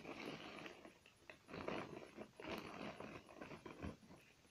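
Faint rustling and scraping of small objects being handled, with a few light clicks.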